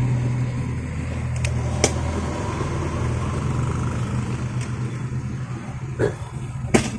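Low steady hum of a motor vehicle's engine running, dropping in level about two seconds in, with a few sharp clicks from hand work at the timing belt area.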